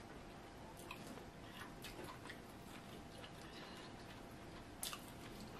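Close-miked chewing of fufu and egusi soup: soft, wet mouth clicks and smacks scattered throughout, with one sharper click near the end.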